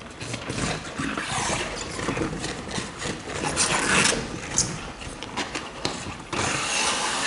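Irregular rubbing and scraping as the heavy rubber gloves of a vapor blasting cabinet handle the blast gun and hoses. About six seconds in, a steady hiss of water spray starts from the cabinet's rinse gun as the freshly blasted part is rinsed.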